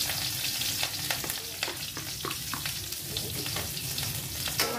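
Food frying in oil in a wok over a gas burner: a steady sizzle with scattered sharp crackles.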